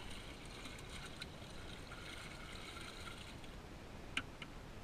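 Water being poured out of a plastic bait bucket, a steady splashing trickle that stops about three and a half seconds in. Two light clicks follow near the end.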